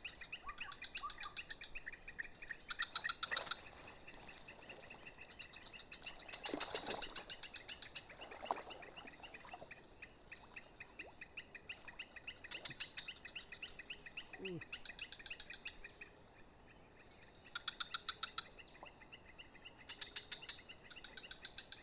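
Chorus of insects: a steady high-pitched drone with trains of rapid pulsing chirps that come and go.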